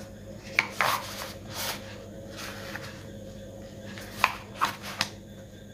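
Handling noise as small plastic gimbal parts are fitted into a cloth drawstring pouch: cloth rubbing and rustling, with half a dozen light, sharp plastic clicks and taps scattered through, over a faint steady hum.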